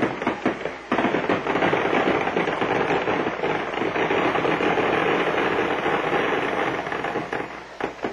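Firecrackers going off: a few sharp cracks in the first second, then a dense, continuous crackle that thins out near the end.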